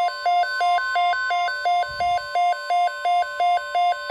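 NOAA Weather Radio alert tones announcing a severe thunderstorm watch: a steady 1050 Hz warning alarm tone, with a loud electronic alarm switching between two pitches about two to three times a second over it.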